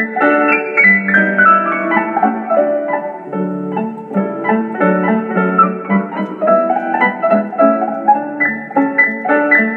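Instrumental piano music: a quick melody of short notes, with runs stepping down in pitch, over lower held notes.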